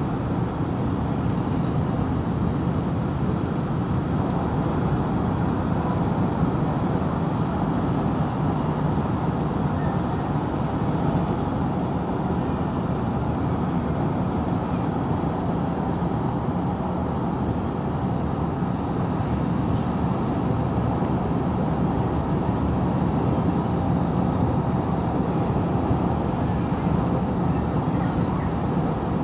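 Steady road and engine noise of a car travelling at speed on a multi-lane highway, heard from inside the cabin: an even low rumble with no sudden events.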